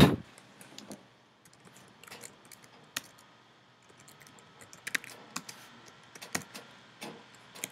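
Typing on a computer keyboard: scattered keystrokes with short pauses between them. One loud, sharp knock comes right at the start.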